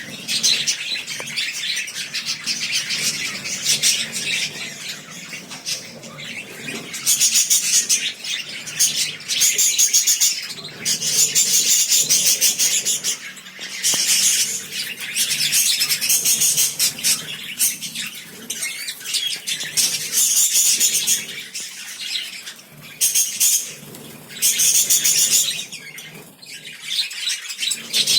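A group of pet lovebirds chattering and screeching. The calls come in dense, shrill bursts of a second or two, with softer chatter between them.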